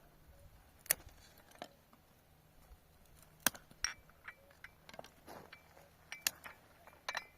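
Hard objects clinking and knocking together in about a dozen irregular, sharp strikes, several with a brief ringing note, the loudest about a second in, mid-way and near the end.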